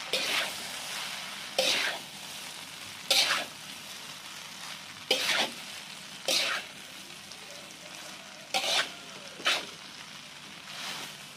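Rice vermicelli with meatballs and mushrooms frying in a wide metal wok with a steady sizzle, while a metal spatula scrapes and tosses it every second or two.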